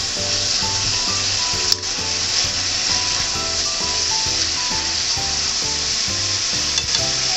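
Pork and vegetables sizzling in a hot frying pan as they are stirred and tossed with chopsticks, a steady frying hiss, with a single sharp click a little under two seconds in. Light background music with a steady beat plays under it.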